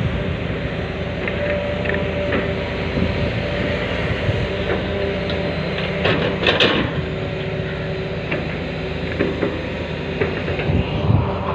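SK130 excavator running under load, its engine and hydraulics giving a steady drone with a held whine, and sharp clanks about six to seven seconds in and again near the end.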